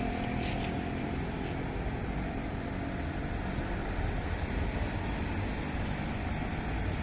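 Steady low rumble of road traffic, with heavy vehicles' engines running.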